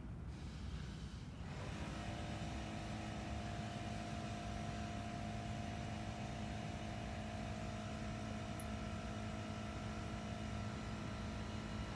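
Steady motor hum that comes in about a second and a half in and holds at one even pitch.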